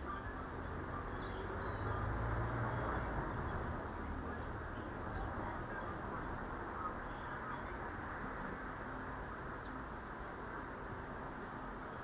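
Garden birds chirping: short high calls scattered through, faint over a steady hiss and low rumble. The rumble swells briefly about two seconds in.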